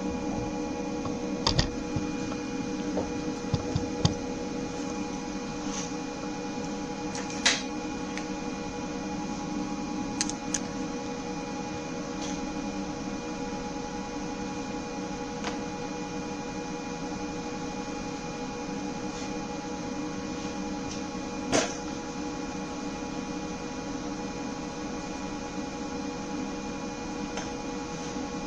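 Steady electrical hum made of several fixed tones, broken by a handful of short, sharp metallic clicks and taps. Two stand out, about a quarter of the way in and again about three quarters of the way through.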